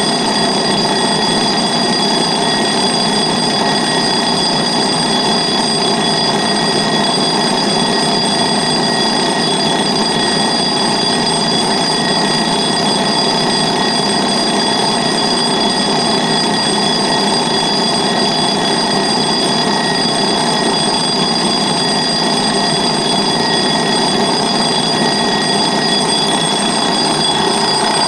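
Retro analogue table clock's mechanical alarm bell ringing continuously, a fast, steady, unbroken ring at a constant loudness.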